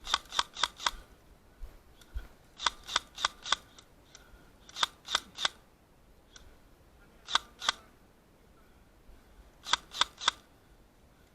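Airsoft gun firing in quick semi-automatic strings of sharp pops, about three shots a second: four, four, three, two and then three shots, with short pauses between the strings.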